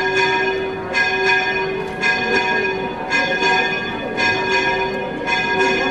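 Church bells ringing in a steady rhythm, with new strikes about once a second, often two in quick succession, each left to ring on.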